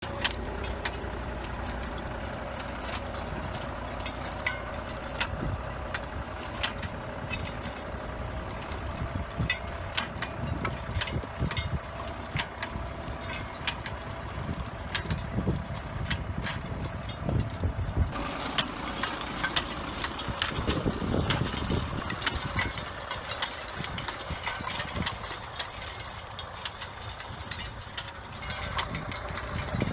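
Tractor engine running steadily while it pulls a sensor-arm blade hoe through the soil between vines, with frequent sharp clicks and knocks over the engine drone.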